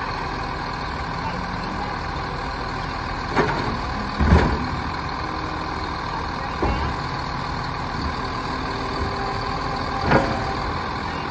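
Automated side-loader garbage truck running steadily while its hydraulic arm grabs a wheeled trash cart and lifts it toward the hopper. A few clanks and thumps from the arm and cart break through the running, the loudest about four seconds in and another near the end.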